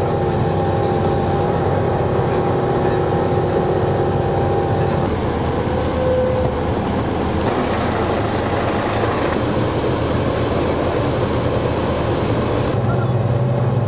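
Coach bus running, heard inside the passenger cabin: steady engine drone and road noise. The engine tone shifts about five seconds in, and a deeper hum comes up near the end.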